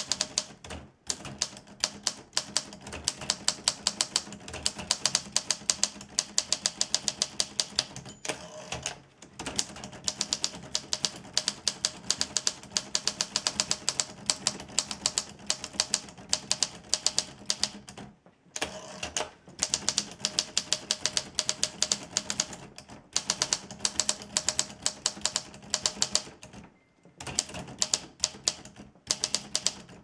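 1945 Olympia Progress portable typewriter being typed on steadily: rapid typebar strikes, several a second, in runs broken by a few short pauses. Its margin bell is out of adjustment and very faint.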